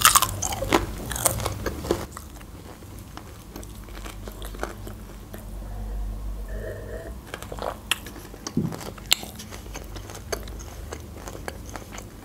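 Close-up crunching bite into crispy fried chicken, with a dense crackle over the first two seconds, then quieter chewing with scattered crunches. A sip and a swallow come in the middle, followed by more crunchy chewing.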